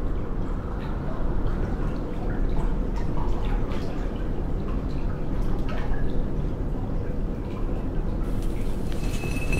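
Steady low rumble with faint, scattered drips of water, like the ambience of a damp cellar.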